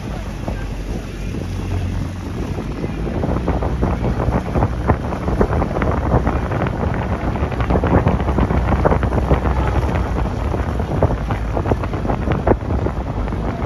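Wind buffeting the microphone over the steady low drone of a motorboat running alongside, with frequent short splashes of water against the hull that grow busier after a few seconds.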